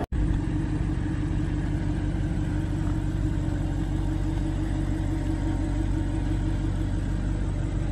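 Audi R8 Spider's 4.2-litre V8 idling steadily through its exhaust after a cold start-up.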